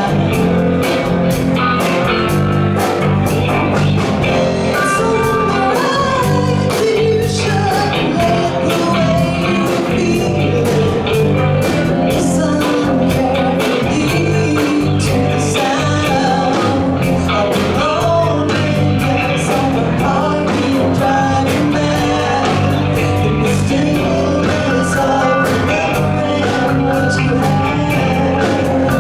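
Live rock band playing: electric guitars, bass and drums on a steady beat, with a woman singing lead.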